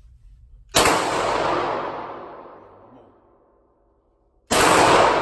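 Two gunshots from a firearm at a shooting range, about four seconds apart, each ringing out in a long echo that dies away over about two seconds.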